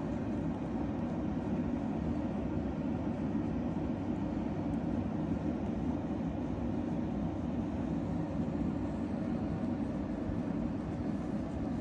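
Strong wind in a snowstorm: a steady, low rushing rumble without a break.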